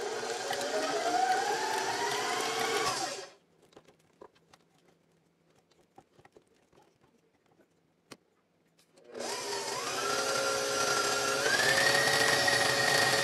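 Electric stand mixer with a paddle attachment beating butter and cream cheese. The motor whine rises in pitch, then cuts off about three seconds in. After a pause with a few faint clicks, the mixer starts again about nine seconds in, steps up in pitch twice as the speed is raised, and runs steadily.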